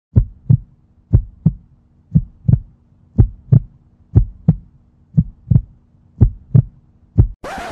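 Heartbeat sound effect: deep double thumps, lub-dub, about one pair a second, seven times over, above a faint steady low hum.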